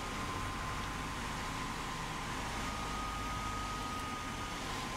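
Cessna 172 engine and propeller running steadily, heard from inside the cockpit with steady rushing airflow noise. A thin high whine holds throughout, with a second slightly higher tone joining for about two seconds midway.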